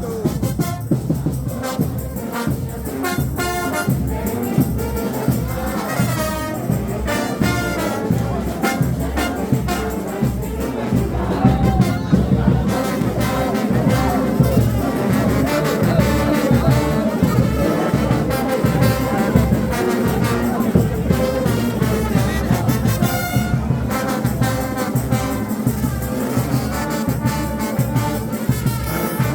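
Frevo street orchestra playing live: trumpets and trombones carry a fast tune over steady drumming.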